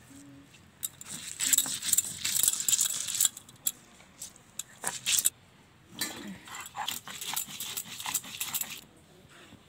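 Stone roller grinding onion and spices on a flat stone slab (sil batta): two spells of gritty scraping and clicking, the first starting about a second in, the second about six seconds in.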